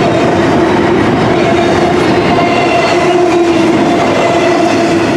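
Double-stack intermodal container well cars of a freight train rolling past: a loud, steady rumble of steel wheels on rail, with a steady ringing tone over it that breaks off now and then.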